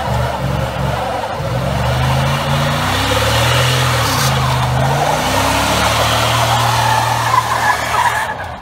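Pickup truck doing a burnout: the engine held at high revs, rising and falling, under a steady screech of the spinning rear tyre. The sound falls away suddenly near the end as the truck pulls off.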